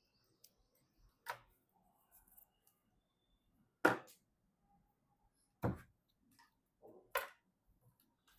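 Hardware being handled during PC assembly: four separate sharp clicks and knocks, spaced a second or two apart, with a softer one just before the last.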